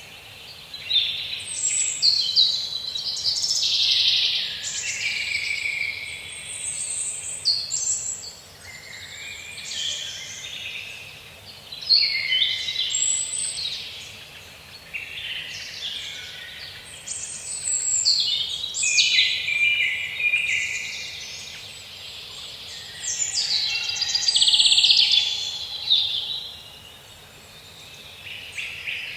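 Several songbirds chirping and singing over one another in a busy chorus, swelling and fading every few seconds, over a faint steady background.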